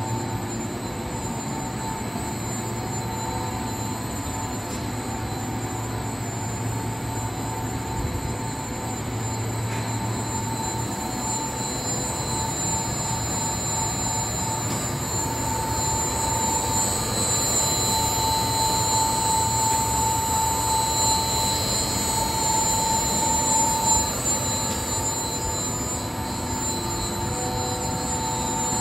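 A 50-ton high-speed press for bandsaw blade production, fed by two servo strip feeders, running continuously: a dense, steady mechanical clatter with steady high-pitched whines through it. It grows somewhat louder past the middle.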